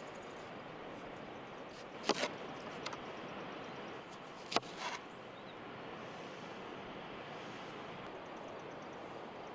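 Steady outdoor background noise with two short, sharp knocks about two and a half seconds apart, each trailed by a brief scraping rustle.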